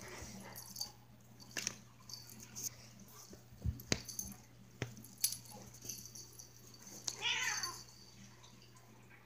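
A kitten play-fighting: scattered knocks and scuffles, with one short meow about seven seconds in.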